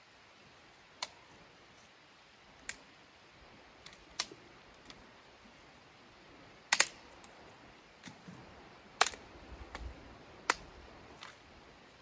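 Sharp, irregular clicks and cracks, a dozen or so spread over the stretch, the loudest a quick double crack about seven seconds in, over a low steady background.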